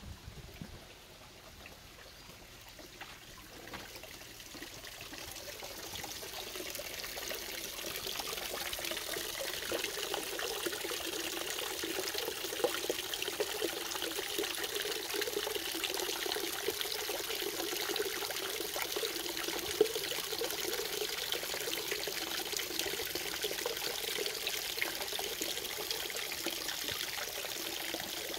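Small rock-garden waterfall trickling and splashing over mossy stone ledges into a shallow pool. It grows louder over the first several seconds, then runs steadily.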